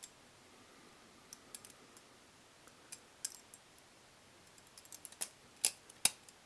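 BRS Bare Bones stainless-steel trainer balisong being handled and flipped: scattered light metal clicks as the handles and tang knock together. They come more often in the second half, with two sharper clacks near the end.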